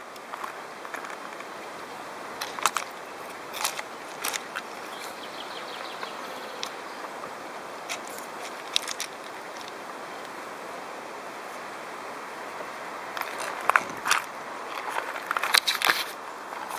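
Scattered clicks, knocks and rattles of a GoPro Hero 3's plastic waterproof housing and its wooden handle stick being handled, busiest near the end, over the steady rush of a shallow creek.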